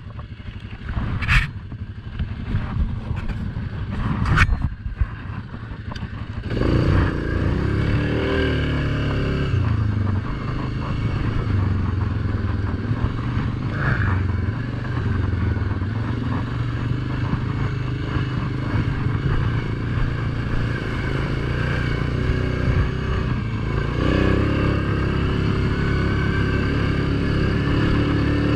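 Suzuki King Quad ATV engine, quiet at first with a few knocks and clatter. About six seconds in it is throttled up and the quad rides along a dirt trail, the engine note rising and falling with the throttle.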